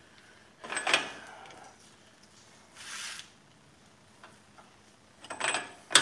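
Steel hand tools clanking against each other and the hub: a clattering knock about a second in, a short scraping swish about three seconds in, then more clanks ending in a sharp metallic click near the end.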